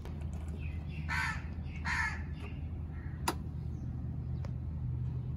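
A crow cawing twice, about a second apart, over a steady low hum, followed by a single sharp click.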